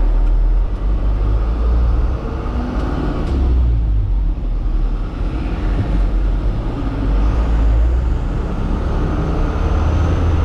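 Truck engine and road noise heard from inside the cab while driving: a steady low rumble that swells and eases slightly every second or two.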